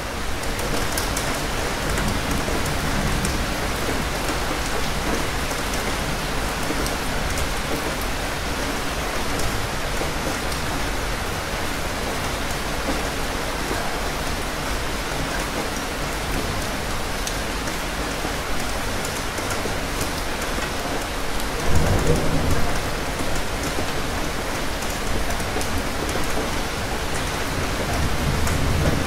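Steady rain falling in an even hiss. About three-quarters of the way through comes a brief, louder low rumble of thunder, and another low rumble swells near the end.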